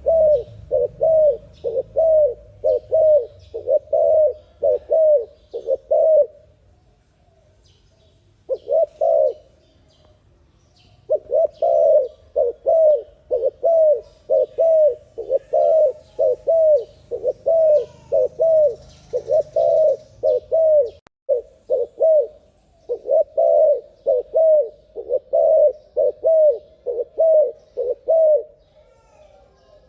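Turtle dove cooing: a fast, even series of short coos, about two a second, pausing briefly twice early on and again near the end.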